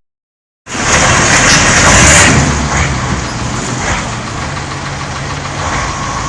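Heavy machine's engine running hard, starting abruptly about a second in, loudest about two seconds in and then steady.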